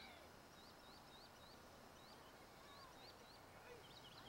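Faint, repeated short rising chirps, about two or three a second, from a small calling animal, over a quiet outdoor background.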